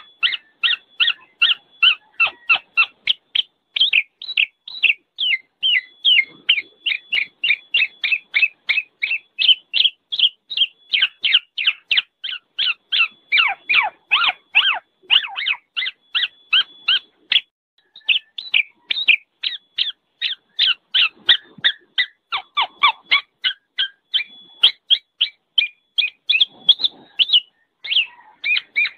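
Black-naped oriole (kepodang) calling noisily: a rapid, unbroken run of short, sharp notes falling in pitch, about three a second.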